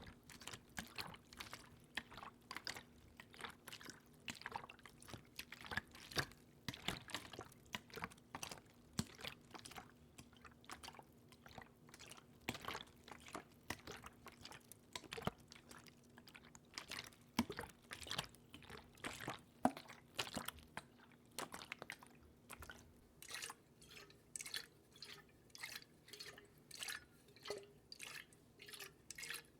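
Close-miked water sounds: many small irregular clicks, drips and splashes, settling about two-thirds of the way through into an even patter of drops about twice a second.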